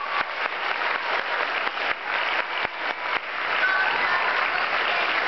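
Audience applauding at the end of a stage musical dance number. Separate nearby claps stand out at first, then the applause thickens and grows louder about three seconds in.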